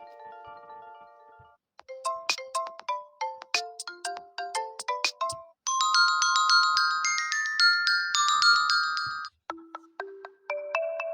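Tecno Spark 20 Pro built-in ringtones played one after another: four short melodic tunes in turn, the middle two with bright, sharply struck notes, each cut off and followed by the next after a few seconds.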